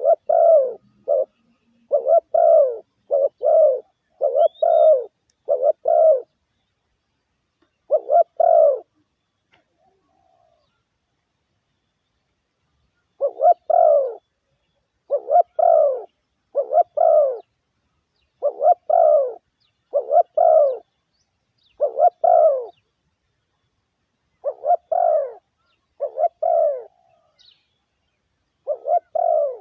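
Spotted dove cooing: runs of short, low coos repeated in phrases, with a pause of a few seconds near the middle. It is the dove's lure call, used to draw other doves in.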